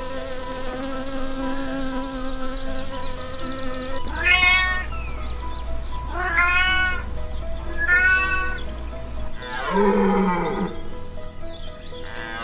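A honeybee buzzing steadily, then a domestic cat meowing three times in a row, each meow rising and falling. About ten seconds in comes a single deeper animal call, over soft background music.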